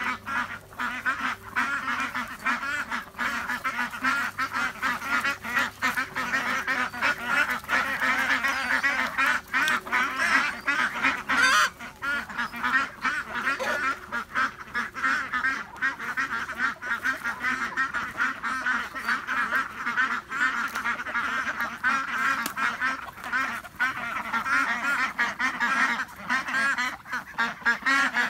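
A flock of Indian Runner ducks quacking and chattering together, many overlapping calls without a break.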